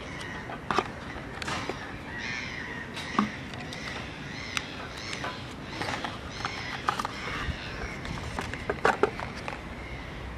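Clicks and taps of hands handling a cardboard box and a plastic wall charger, with birds chirping repeatedly in the background.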